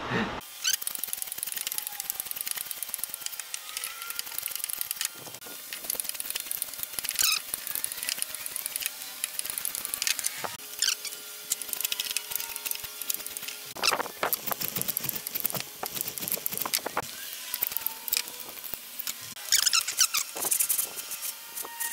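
Metal hand plane shaving wood in repeated quick strokes, each a short hiss of the blade cutting, with knocks as the plane is drawn back; toward the end the plane runs on its side along a shooting board, trimming the end of a board square.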